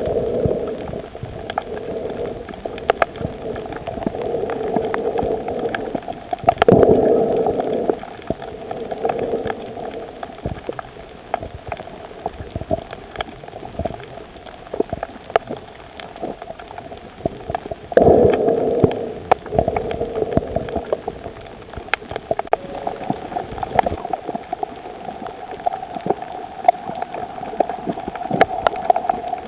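Underwater reef ambience heard through a snorkeller's camera: a muffled, steady water noise with scattered sharp clicks and crackles, and two louder bubbling, gurgling surges, about seven and eighteen seconds in.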